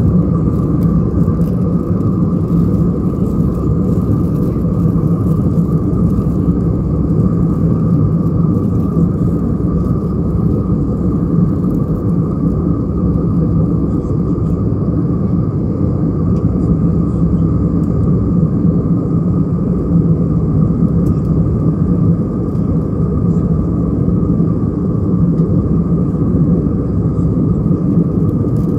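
Steady cabin noise inside an Airbus A320-214 in flight: the constant low drone of the CFM56-5B engines and airflow, with a fainter steady hum higher up.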